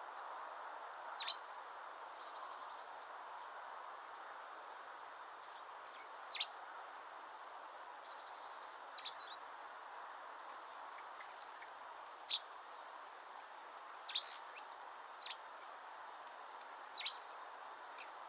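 Short, sharp bird calls, about seven of them at irregular intervals, over a steady background hiss.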